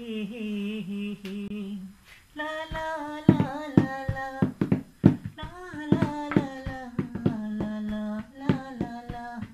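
A man's voice humming a steady held note, then after about two seconds singing a Sinhala song without instruments. Sharp hand slaps, most likely on a bag, keep a loose beat under the singing.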